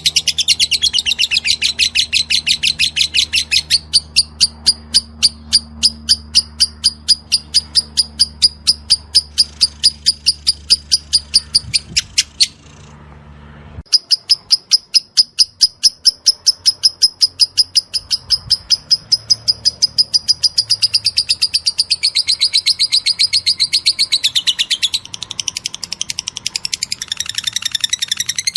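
A lovebird singing in the rapid 'ngetik' (typing) style: a long run of sharp, high chirps, about five a second, like fast typing. The run breaks off for about a second midway, then starts again.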